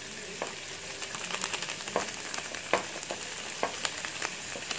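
Long beans, fish cake and shallots sizzling in oil in a nonstick wok as they are stir-fried, with irregular sharp clicks and scrapes of a metal spatula against the pan.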